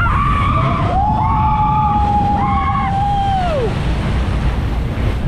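Riders on a log-flume boat whooping in long held cries, the loudest one sliding down in pitch at its end, over a steady rush of wind and water.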